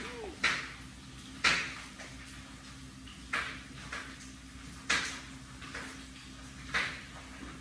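Adult cat crunching dry kibble: short crisp crunches at irregular intervals of about a second or two, over a faint steady hum.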